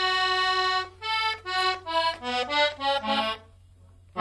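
Solo accordion playing a cumbia introduction: one held note, then a quick run of short notes stepping down in pitch. It stops for a brief pause near the end.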